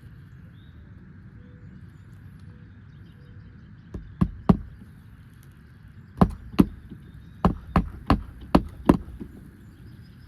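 Hammer striking roofing nails into an asphalt shingle: about ten sharp strikes in small groups, starting about four seconds in. Every strike knocks aggregate granules loose from the shingle.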